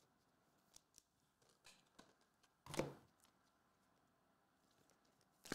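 Faint sounds of trading cards being handled and sorted by hand: scattered light clicks and rustles, a brief louder rustle about three seconds in, and a sharp click near the end.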